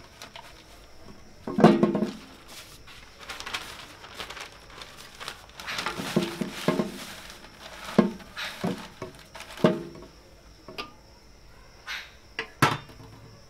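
Newspaper rustling and crinkling as it is handled and laid into a large metal container, broken by scattered knocks and clinks of the metal container and utensils, a sharp one near the end.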